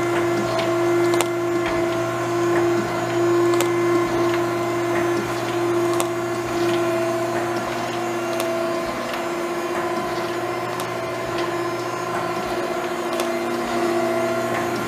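Okamoto ACC 12.24DX automatic surface grinder running its automatic cycle with incremental downfeed: a steady machine hum with a tone that swells and fades every couple of seconds, and irregular sharp ticks and crackles over it.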